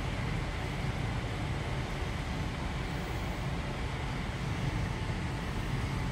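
Steady low rumble of a running vehicle, with street noise and no distinct knocks or rhythm.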